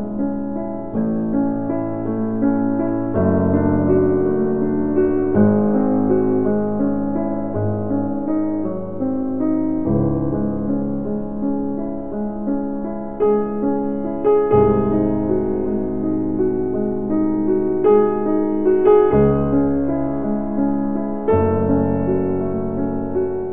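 Background piano music: slow, sustained chords changing every few seconds over low bass notes.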